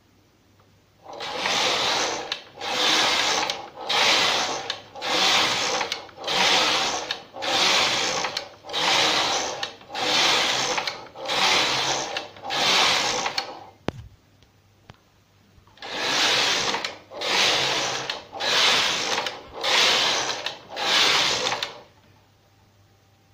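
Knitmaster 324 knitting machine carriage pushed back and forth across the needle bed, the needles clattering and swishing with each row knitted, a little under a second per pass. The carriage is freshly cleaned and running smoothly. The run stops for about two seconds, with a single click, about halfway through, then resumes for six more passes.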